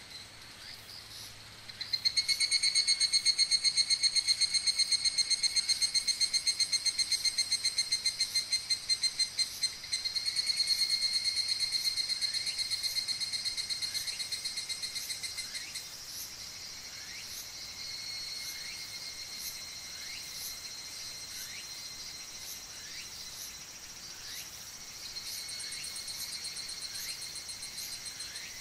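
Higurashi evening cicadas (Tanna japonensis) singing their ringing, rapidly pulsed song. A close one starts loud about two seconds in, begins a fresh phrase near ten seconds and fades away by about sixteen seconds, while fainter higurashi keep calling, swelling again near the end.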